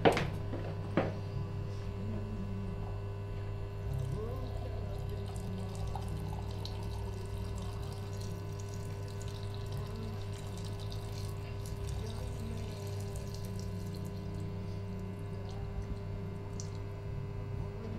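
Water running from a tap into a sink, a steady wash of noise over a low steady hum, with a couple of sharp clicks in the first second.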